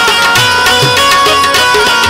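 Instrumental interlude of Gujarati devotional bhajan music: a sustained melody line over tabla, whose low drum strokes bend in pitch.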